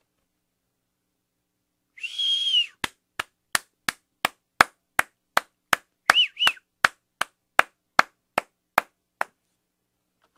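One person whistling a single held note, then clapping steadily at about three claps a second, with a quick two-note whistle partway through: a single person's cheer, recorded as one layer of a homemade crowd.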